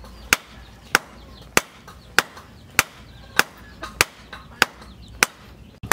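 Hand hammer forging a red-hot steel blade on a round post anvil: sharp, evenly paced blows about every 0.6 seconds, with a few lighter taps between them.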